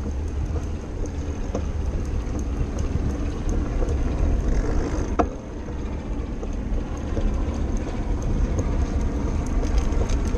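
Steady low rumble of a bicycle rolling along a wooden boardwalk, with wind on the bike-mounted microphone and scattered light clicks and rattles from the ride.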